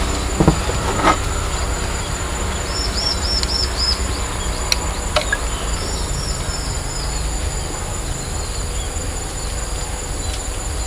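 Steady high-pitched drone of crickets and other insects over a low rumble. A quick run of about five short bird chirps comes about three seconds in, with more chirping around six seconds and near the end, and two short knocks in the first second or so.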